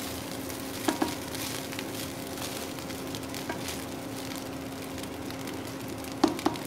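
Fried rice sizzling in a non-stick wok as a spatula stirs and tosses it, with a few sharp knocks of the spatula against the pan about a second in and again near the end. A steady low hum runs underneath.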